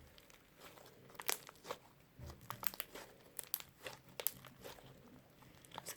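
Fluffy slime, overloaded with shaving cream, being squeezed and stretched by hand, giving off faint, irregular crackles and pops.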